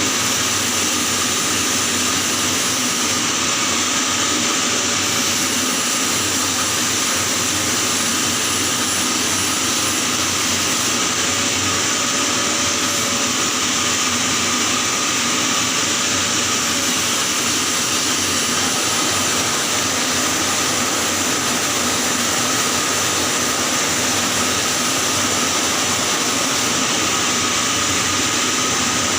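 Electric arc welding on a pipe joint in the 6G position: a steady, unbroken hiss with a faint thin tone over it.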